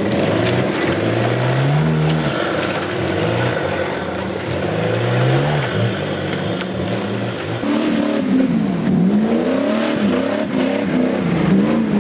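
Off-road 4x4's engine revving hard as it climbs a muddy, rocky gully, its pitch rising and falling again and again. From about eight seconds the revs swing up and down more quickly.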